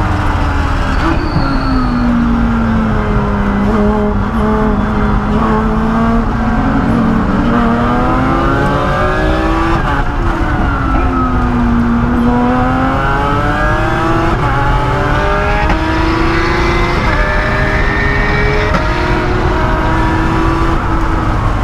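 Lotus Exige Cup race car's V6 engine heard from inside the cockpit at racing speed. Its note falls in pitch as the car slows, climbs again under acceleration, and drops and rises repeatedly through gear changes and corners.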